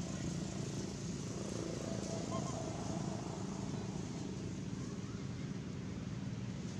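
Steady outdoor background noise, a low rumble with no clear single source, with two short faint chirps, one about two and a half seconds in and another near the end.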